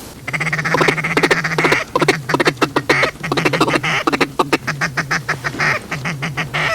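Hand-blown duck call sounding a fast run of quacks and chatter, one burst after another with short breaks.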